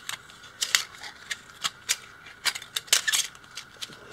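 A tape measure's coiled recoil spring being let unwind by hand, giving irregular sharp clicks as the reel slips round in its plastic case.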